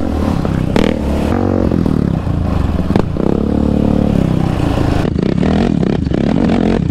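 Yamaha Raptor 700R's single-cylinder four-stroke engine revving up and down while riding a rough dirt trail, with clatter and knocks from the quad over the ground. About five seconds in the sound changes to another quad riding toward the camera over gravel.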